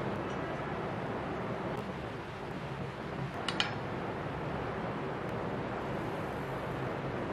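Steady background hiss with one short, sharp click about three and a half seconds in, as an aluminium speed square is set down against a wooden board.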